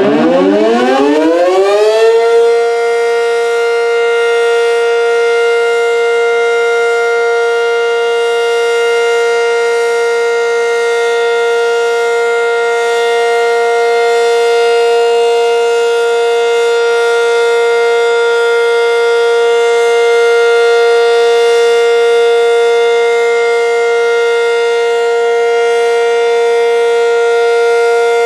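ACA Super Banshee (Banshee 120) omnidirectional electromechanical siren winding up, rising in pitch over the first two seconds, then holding one loud steady tone: its one-minute steady-alert noon test blast.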